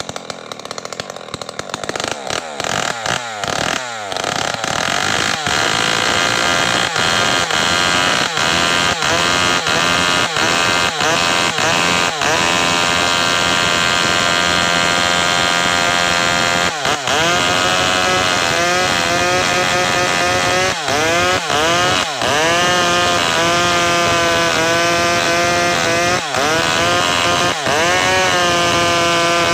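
Maestro two-stroke chainsaw cutting gmelina (white teak) wood. The engine revs high and its pitch repeatedly dips and recovers as the chain bites into the log. The level builds over the first couple of seconds.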